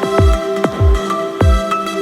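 Electronic background music with a steady beat: deep kick drums falling in pitch about twice a second under held synth tones.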